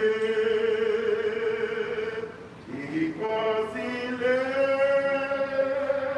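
Slow hymn singing led by a man's voice, on long held notes with a short break for breath about halfway through.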